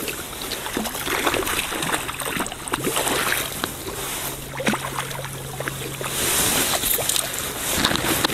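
Hooked trout splashing and thrashing at the surface beside a landing net held in the water, with repeated splashes and sloshing and a louder burst of splashing about six seconds in.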